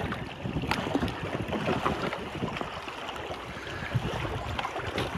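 Wind buffeting the microphone over water lapping and splashing against a paddled canoe on choppy water, with a light knock about two-thirds of a second in.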